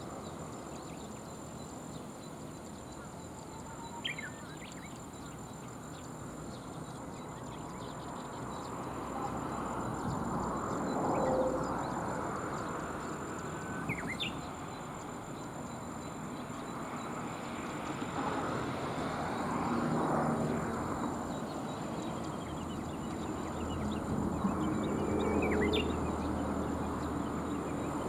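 Outdoor riverside ambience: a steady low rush of noise that swells a few times with a low hum, and a few short, high bird chirps spaced several seconds apart, over a faint steady high-pitched whine.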